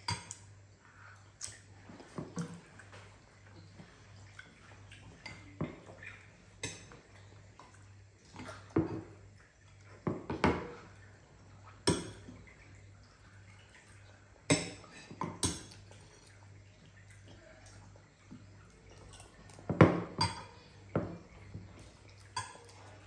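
Metal spoons clinking and scraping against ceramic bowls as children eat, in scattered short clinks with no steady rhythm; the loudest comes about 20 seconds in.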